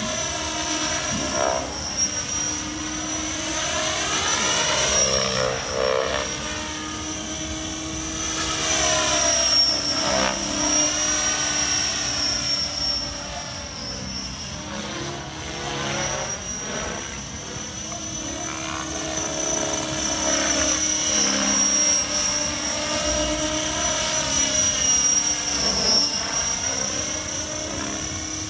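Radio-controlled model helicopter flying overhead: a steady high-pitched whine from its motor and rotor blades, swelling and fading several times as it moves back and forth.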